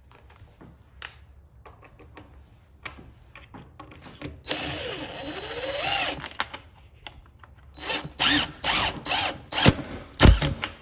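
Cordless drill driving a screw: one run of about two seconds with its pitch dipping and then rising, followed by four short trigger bursts. A sharp knock comes near the end.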